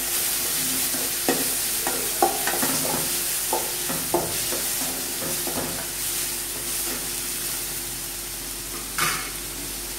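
Onions, green chillies and tomato sizzling in hot oil in a kadai while a slotted spatula scrapes and stirs them around the pan in short strokes, the strokes thinning out in the second half. One louder knock about nine seconds in.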